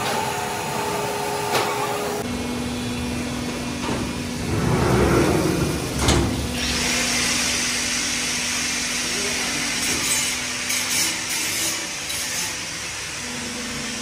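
CNC cross-holder drilling and facing machine running a cycle: a steady motor hum with coolant spray hissing from about six seconds in. A louder swell comes about five seconds in, then a sharp knock.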